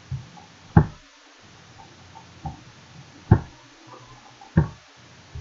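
A handful of short, sharp knocks or taps at uneven intervals, the loudest about a second in and twice more in the second half.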